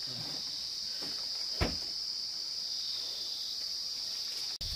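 Steady high-pitched drone of an insect chorus, with a single sharp knock about a second and a half in.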